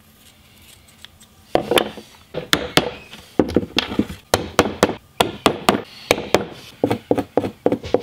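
Hammer driving small nails into an OSB board to pin a squirrel pelt flat. It is a string of sharp blows that starts about a second and a half in and comes faster near the end.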